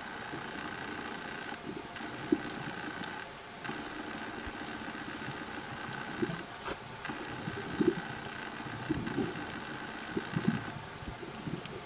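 Underwater ambience: a steady motor-like hum that breaks off briefly a few times, with scattered low pops and clicks.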